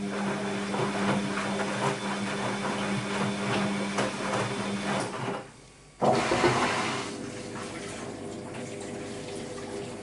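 Bosch WAB28220 washing machine running mid-cycle, with water rushing and sloshing in the drum over a steady hum. The sound drops away briefly about five and a half seconds in, starts again suddenly at six seconds, then settles a little quieter.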